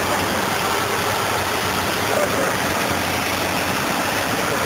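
Cessna 152's four-cylinder Lycoming engine and propeller running steadily, heard from inside the cockpit with a constant rush of air noise.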